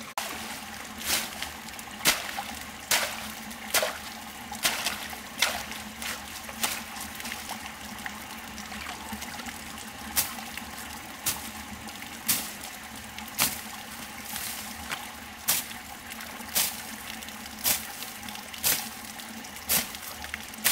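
Machete strokes slashing through grass and weeds on an earth bank, about one a second, with a pause of a few seconds partway through. A steady trickle of running water sounds underneath.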